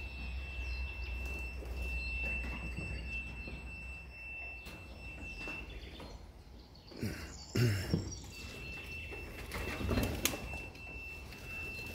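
Racing pigeons flapping their wings around a loft, with a few sharper knocks in the second half. A faint steady high whine runs underneath.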